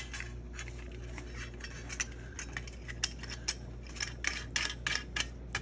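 Irregular small metal clicks and taps as a 12-volt power port socket is handled and test-fitted into a freshly drilled hole in a power supply's metal case, over a steady low hum.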